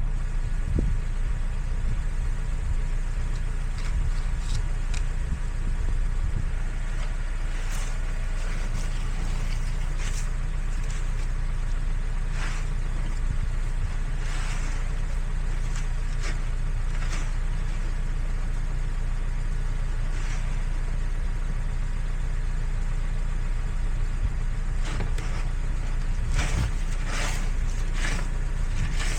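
Car running with a steady low rumble, with scattered short clicks and crunches over it that come more often near the end.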